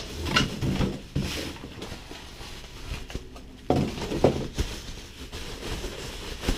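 Bubble wrap and cardboard packaging being handled as a wrapped bike frame is pulled out of its box: irregular rustling and crinkling, with a couple of sharper knocks a little after halfway.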